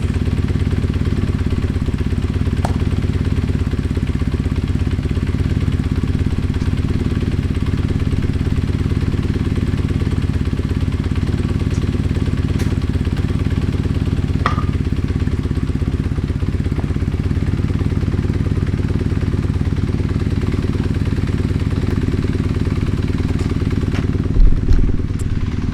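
Kawasaki KZ440 parallel-twin motorcycle engine running steadily at idle with the choke on, just started after a starter motor repair. A loud low thump near the end.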